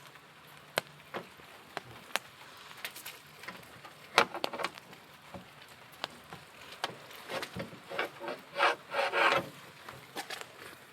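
Scattered taps and clicks with spells of scraping from a lockout reach tool worked through a wedged-open van door, rubbing against the door and interior trim while feeling for the unlock button. The scraping is densest about four seconds in and again near the end.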